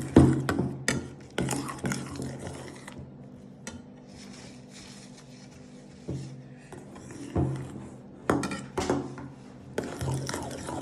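A spoon knocking and scraping against a bowl as slime is stirred and mixed, in irregular clusters with a quieter lull in the middle.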